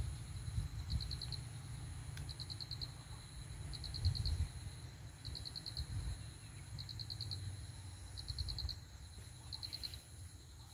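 Insects chirping: short trains of about five quick pulses, repeating roughly every second and a half, over a steady high whine, with a low rumble underneath.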